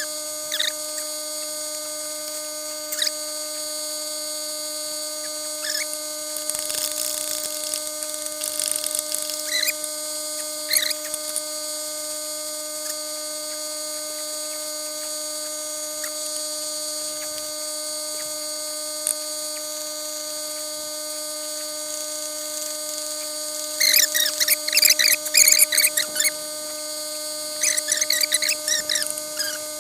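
Steady high-pitched whine from a generator running in the background, with scattered quick metallic clinks and rattles of hand tools. The clatter is loudest in two clusters late on.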